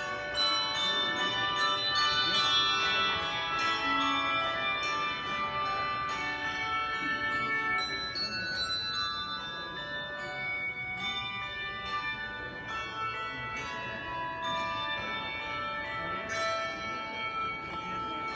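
Bells rung in quick succession, about three strokes a second, each tone ringing on so that the pitches overlap into a continuous wash.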